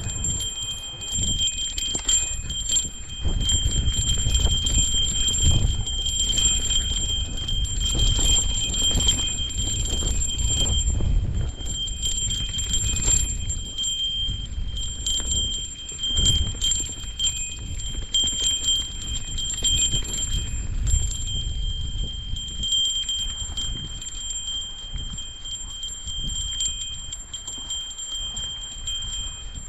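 Mountain bike riding down a rough trail: a small bell jingles without a break as the bike shakes, over a low rumble and frequent knocks from the tyres and frame on the uneven ground.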